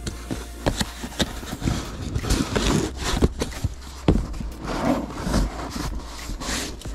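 Cardboard shipping box being handled and its lid flaps folded and pressed shut by hand: cardboard scraping and rustling with a series of sharp taps and knocks.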